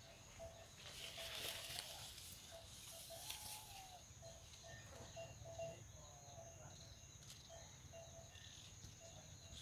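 Faint rural outdoor ambience. A steady high-pitched insect drone runs under a short, lower chirp repeating about twice a second, with a brief rustle about a second in.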